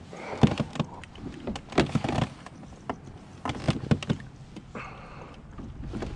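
Irregular knocks, clicks and rattles in several short clusters as gear is handled and bumped against the hard plastic hull of a pedal kayak.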